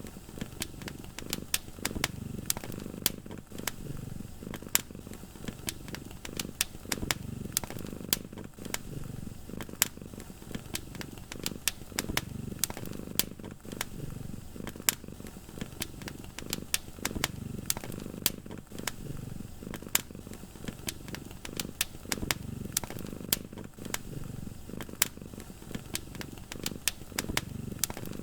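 Cat purring steadily, the low purr swelling and fading every second or two with each breath, under a wood fire crackling with frequent sharp pops.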